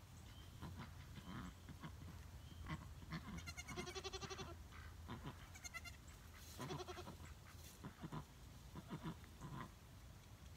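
Goats, a doe and her newborn kid, calling faintly: one clear, high bleat lasting about a second a little past three seconds in, and a few shorter, softer calls later, among light crackling in dry leaves.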